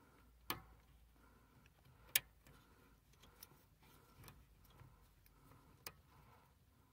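Plastic wiring connector of a brake light switch being handled and plugged in: three sharp clicks, the loudest about two seconds in, over faint light ticking.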